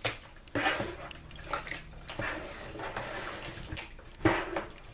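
Hands squishing and sloshing raw chicken pieces in a bowl of broth, vinegar and melted-butter liquid: irregular wet squelches and small splashes as the liquid is massaged into the meat.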